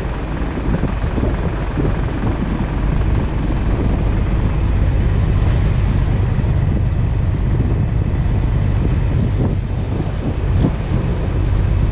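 River boat's engine running steadily underway, a constant low rumble, with water rushing along the hull and wind on the microphone.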